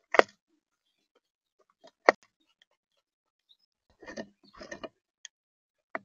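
An animal at a bird feeder, tapping and scrabbling on it: two sharp taps about two seconds apart, then two short scraping rustles and a faint tick or two.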